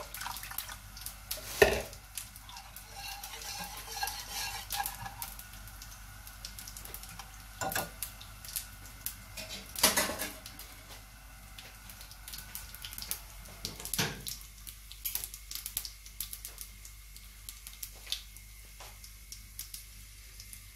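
Wire whisk stirring yogurt thinned with water in a bowl, with light clinks and a few sharper utensil knocks, the loudest about a second and a half, ten seconds and fourteen seconds in.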